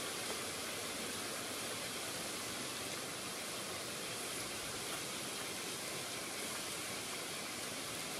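Steady, even outdoor hiss of wind and rippling river water along a rocky shore, with no distinct sounds standing out.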